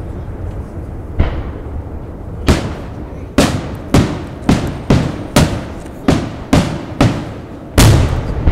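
Aerial firework shells bursting in a display. After a low rumble, sharp bangs come about every half second from a few seconds in, around a dozen of them, each trailing off in a rolling echo. The loudest comes near the end.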